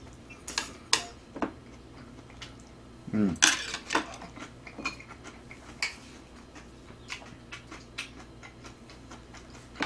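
Metal chopsticks and spoon clicking and scraping against a griddle pan and dishes while eating, a cluster of clicks near the start and scattered single ones after. A brief voiced sound, like a murmur, comes about three seconds in.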